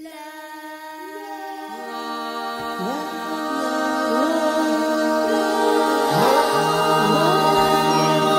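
Layered a cappella choir of many voices holding long notes, growing louder as more voices come in. From about three seconds in, new voices slide up into their notes.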